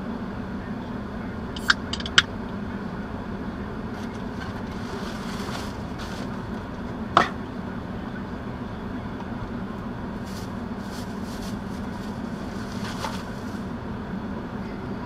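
Steady low hum inside a parked car's cabin, with three sharp clicks about two seconds in and another about seven seconds in.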